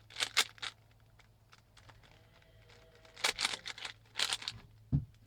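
A plastic Rubik's cube being turned by hand in short bursts of quick rattling clicks: a few turns at the start, a cluster a little past three seconds, another past four, and a single click near the end.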